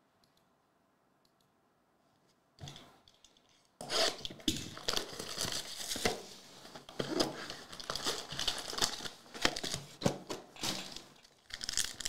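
Plastic wrapping of a trading-card hobby box and its foil packs being torn open and crinkled. A short rustle comes about two and a half seconds in, then dense crackling and tearing from about four seconds on, with a brief pause near the end.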